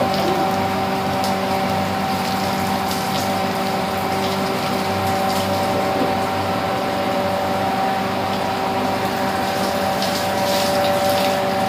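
Steady hum of a motor with the hiss and spatter of a water spray gun, as a freshly hydro-chrome-coated statue is rinsed down during the spray-chrome process.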